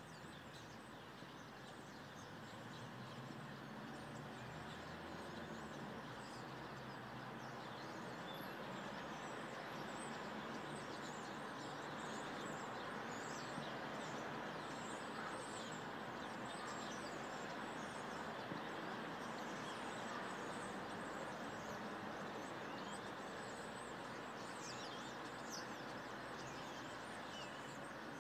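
Many small birds chirping in short, quick notes over a steady low background noise, the chirping busier in the second half.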